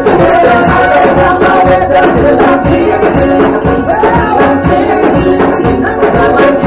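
Loud upbeat dance music with a steady drumbeat.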